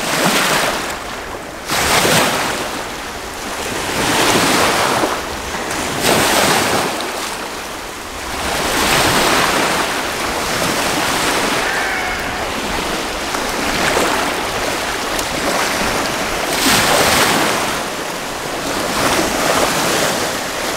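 Small lake waves washing in over a sandy shore, the splash swelling and falling every couple of seconds, with wind on the microphone.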